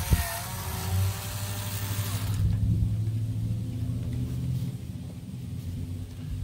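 Cordless drill with a socket extension spinning out a carburetor mounting bolt, a motor whine over a hiss that stops about two and a half seconds in. After it, a low steady rumble continues.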